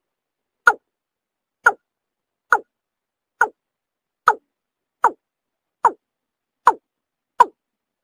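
Watercock (kora) call played back as a lure: a short note falling in pitch, repeated evenly a little faster than once a second, nine times.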